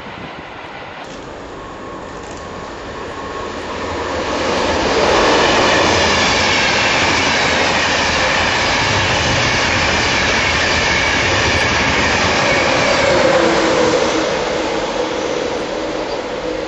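A train passing close through a station platform at speed: the rush of wheels on rails builds from about four seconds in, stays loud for around nine seconds, then fades as it draws away.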